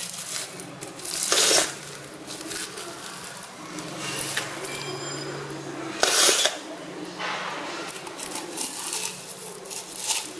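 Fingers squeezing, stirring and scraping slime full of small foam beads in a plastic cup: a steady run of crackly, rustling and squishy noises. There are two louder rasping bursts, about a second and a half in and about six seconds in.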